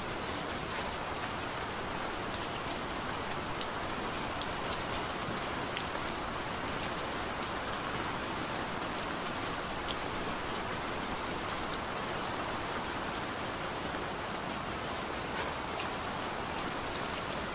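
Steady rain falling: an even hiss with single drops ticking sharply now and then.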